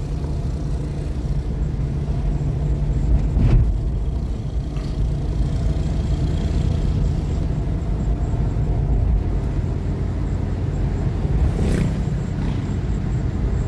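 Car driving, heard from inside the cabin: a steady low rumble of engine and road noise, with a brief knock about three and a half seconds in and a weaker one near the end.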